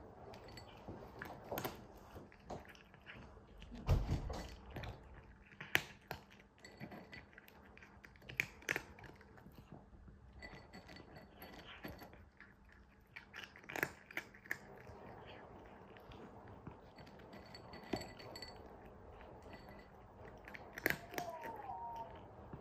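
Cat crunching dry kibble from a glass bowl: irregular crisp crunches and clicks as it chews, with a dull thump about four seconds in.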